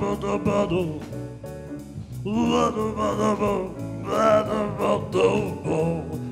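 A man singing into a handheld microphone over backing music with a steady beat.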